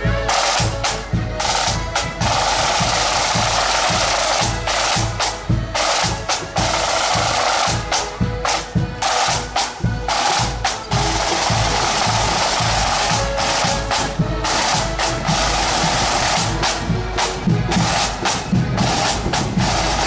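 Accordion marching band playing a march on the move, snare drums rattling in quick rolls and rudiments over a bass drum beat, with the accordions carrying the tune.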